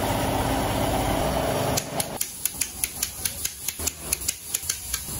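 A hand-held pneumatic wrench runs steadily for nearly two seconds and stops. Then a long ratcheting torque wrench clicks sharply in quick, slightly uneven succession, about four clicks a second, as it tightens crankshaft bearing cap bolts on an Isuzu 4HK1 engine block.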